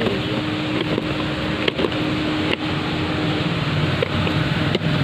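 An engine running steadily, a low hum with a steady tone above it that fades out about three and a half seconds in. A few light clicks come from a cardboard phone box being handled.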